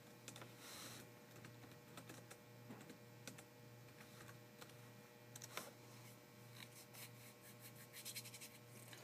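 Faint typing on a computer keyboard: scattered keystrokes that come quicker and closer together in the second half, over a low steady hum.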